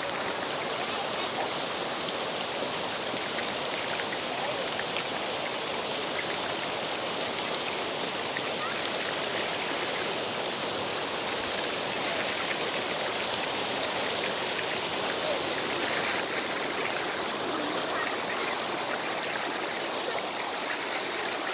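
Shallow creek water running steadily over a broad rock slab, an even rushing with no let-up.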